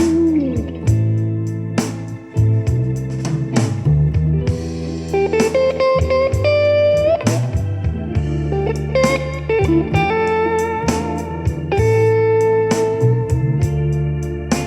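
Blues-rock song with electric guitar, bass and drums, played through an Electro-Voice ZLX15 G2 15-inch powered loudspeaker in a sound check. The guitar holds notes that bend in pitch over an even drum beat.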